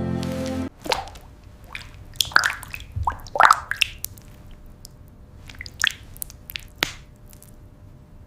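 Soft wet squishing and dripping: a string of irregular short plops, many rising quickly in pitch, after music stops under a second in.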